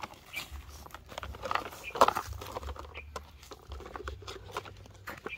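Plastic toy excavator and loader being pushed and scooped through loose, lumpy soil: scattered crunching, scraping and short clicks of dirt and plastic.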